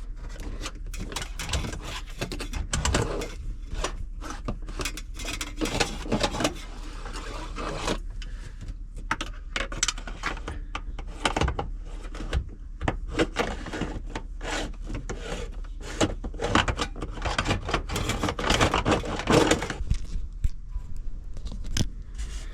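Electrician's fish tape being fed down a hole in the floor, rattling and scraping against the hole in a run of irregular clicks and scrapes.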